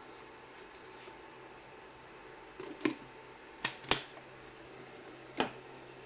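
Four short, sharp clicks and knocks from small hard objects being handled, over a steady low hum.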